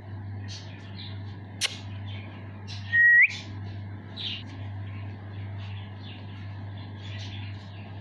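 Indian ringneck parrot (rose-ringed parakeet) giving scattered short chirps, with one loud whistle about three seconds in that holds one pitch and then sweeps sharply upward. A sharp click comes just before the whistle.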